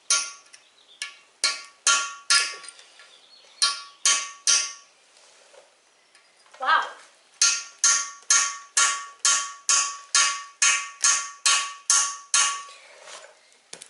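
Hammer blows on a steel punch held against a freeze plug in an engine block, each a sharp metallic tap with a short ring. The punch is struck on one side of the plug to tip it so it spins loose. A few scattered blows come first, then a steady run of about fourteen strikes, two to three a second, through the second half.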